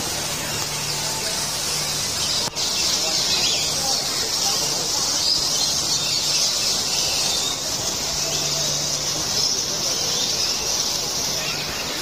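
Many parrots calling together, a dense, continuous high-pitched chatter and squawking, with a brief dropout about two and a half seconds in.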